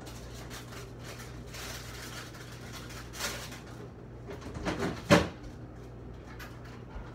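Refrigerator door being opened and shut while someone rummages inside: soft handling sounds over a steady low hum, a soft knock about three seconds in and a sharp, louder knock about five seconds in.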